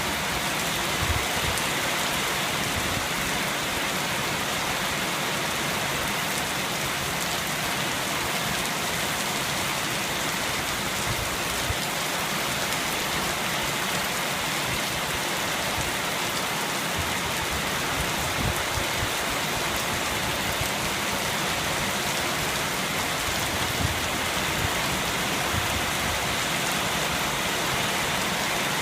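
Steady rain falling and pattering on surfaces, with now and then a faint low knock of a heavier drop.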